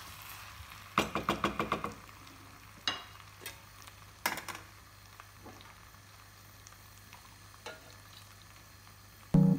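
Wooden spatula scraping and knocking against a large pot as spiced rice and meat are stirred and fried: a quick run of about seven strokes about a second in, then a few single knocks, over a faint sizzle.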